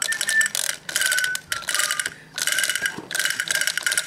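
Doraemon drumming toy: a fast plastic clatter of its mechanism and sticks on the toy drum. The clatter comes in bursts of about half a second, with brief pauses between them.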